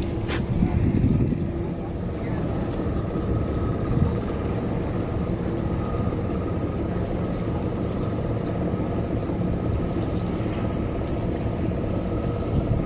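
Steady drone of a boat's engine: a continuous low rumble with a faint, even whine above it.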